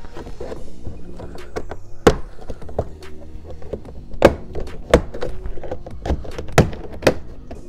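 A Toyota RAV4 rear door trim panel's retaining clips popping loose one after another as the panel is pried off, giving several sharp pops and knocks. The loudest comes about two seconds in and a cluster follows in the second half. Faint background music runs beneath.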